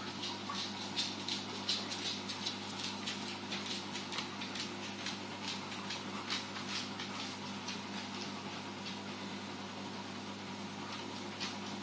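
Steady hum of reef aquarium equipment, with a patter of quick crackling clicks over it that is dense at first and thins out after about six or seven seconds.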